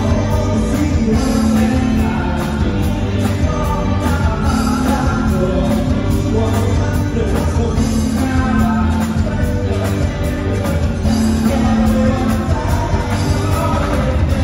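Live band playing a song through large PA speakers, with several voices singing together over electric guitar.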